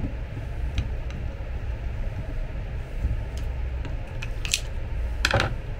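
Screwdriver prying a ball bearing off the gear shaft of an electric bed's linear actuator: scattered small metallic clicks and scrapes, with the loudest clatter a little past five seconds in.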